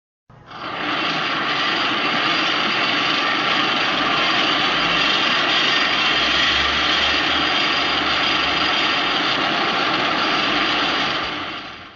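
Godzilla roar sound effect: one long, steady roar starting about half a second in and lasting about eleven seconds before fading out.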